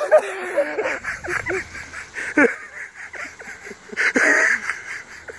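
Excited yelps and exclamations from men struggling with a large live fish, with a sharp knock about two and a half seconds in and a brief rush of noise about four seconds in.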